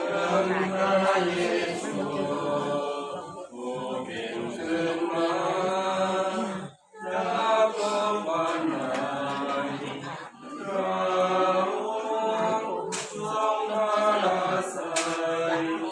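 A congregation singing a Christian hymn together, unaccompanied, in long held phrases with short breaks between them.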